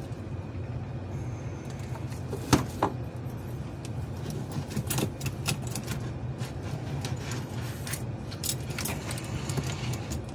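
Scattered light clicks and taps of small metal parts and tools being handled on a toy train locomotive's chassis, with one sharper click about two and a half seconds in, over a steady low hum.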